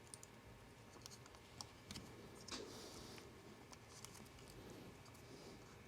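Near silence broken by faint, scattered light clicks and taps: small parts being handled as an iPhone X's flex-cable connectors are pressed into place and checked.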